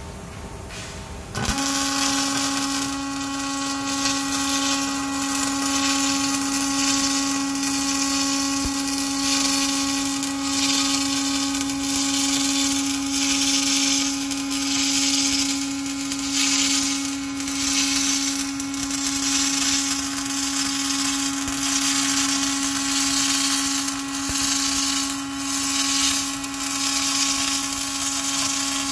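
An electric power tool starts about a second and a half in and runs steadily with a whining tone and a hiss that swells and fades.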